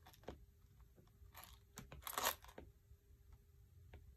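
Faint Apple Pencil tip tapping and scratching on an iPad's glass screen during handwriting: light ticks with two short scratchy strokes, about a second and a half and two seconds in.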